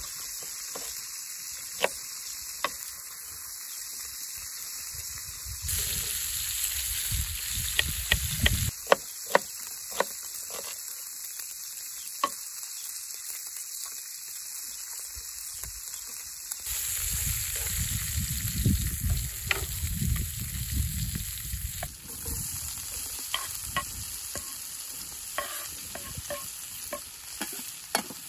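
Lamb chops sizzling in a frying pan, a steady hiss, with scattered sharp knocks of a kitchen knife on a wooden chopping board. A low rumble swells up twice, for a few seconds each time.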